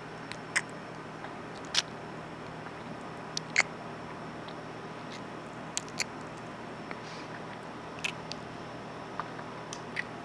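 Kissing sounds made close to the microphone: short lip smacks and mouth clicks at irregular intervals, about a dozen or more, over a steady faint hiss.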